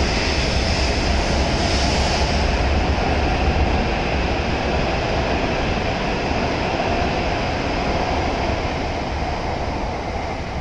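W7 series Shinkansen train pulling out of the station and running past alongside the platform: a steady rush of wheels and running gear with a low rumble, fading over the last couple of seconds as the last car goes by.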